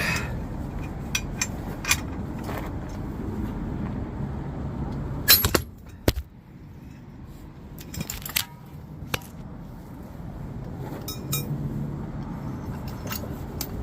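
Metal-on-metal clicks and clinks from a ball-joint press being worked on a truck front-end part, with one loud sharp bang about five seconds in. A steady low rumble runs underneath and grows quieter after the bang.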